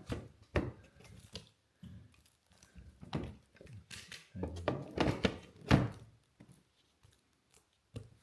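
A series of knocks and thunks, the loudest about six seconds in, as a Maxxfan Dome roof fan unit is handled, seated and dropped into a cut roof opening for a test fit.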